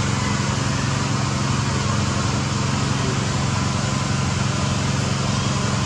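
A small engine running steadily: an even low hum under a wide hiss that does not change.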